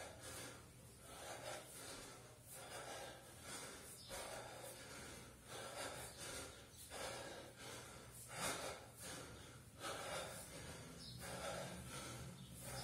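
A man breathing hard and rhythmically, with forceful breaths about once a second, while he works through a long set of 24 kg kettlebell cleans.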